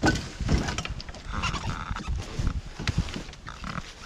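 Irregular knocks and bumps of people climbing into a canoe and settling in.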